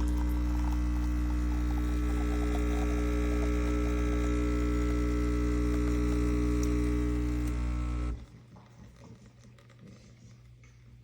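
Ihomekee 15-bar espresso machine's pump running with a steady, deep hum, cutting off suddenly about eight seconds in.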